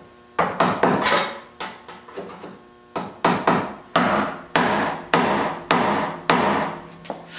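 Hammer blows on metal, one after another. They come quick and uneven at first, then settle into a steady beat of nearly two a second, each with a brief ringing tail. This is typical of shaping or tapping a metal part into place while welding.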